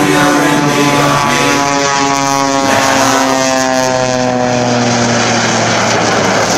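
Aerobatic biplane's propeller engine droning loudly overhead, its pitch shifting down and then back up as the plane manoeuvres.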